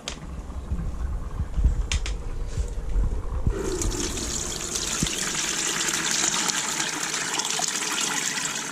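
A steady rush of liquid, starting suddenly about three and a half seconds in, after low rumbling knocks.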